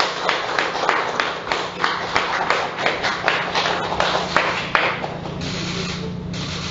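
A small group of people clapping in a room: scattered, uneven claps that fade out about five seconds in, over a steady low hum.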